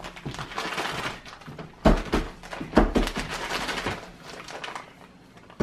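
Handling noise of food preparation at a kitchen table: rustling and scraping, with dull knocks about two and three seconds in.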